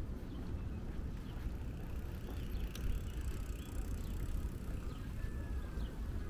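Outdoor park ambience: a steady low rumble of passing traffic along the park drive, with faint bird chirps here and there.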